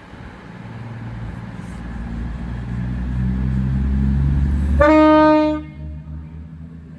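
A train rumbling louder as it approaches, then sounding a short single-note horn blast about five seconds in that lasts under a second.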